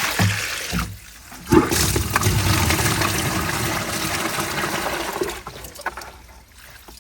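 Water running hard from an open tap: a brief splash at the start, then a steady rush that starts about a second and a half in and is shut off about five seconds in.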